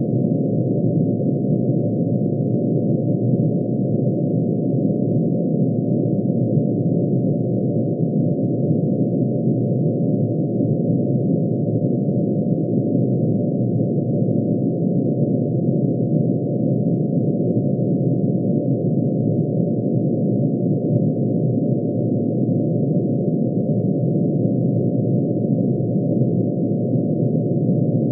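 Synthesized steady drone made of many sine tones summed together, one for each line of mercury's atomic emission spectrum, shifted down to audible pitch. It holds unchanged, a dense low-to-middle chord with no beat or variation.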